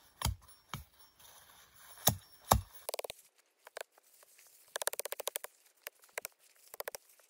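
Stihl forestry hatchet chopping into wood: four sharp chops in two pairs within the first two and a half seconds. Short bursts of rapid crackling follow.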